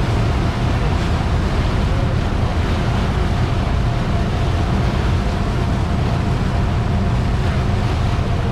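Motorboat under way: the engine drones steadily and low, while the wake churns and splashes behind the stern. Wind is blowing on the microphone.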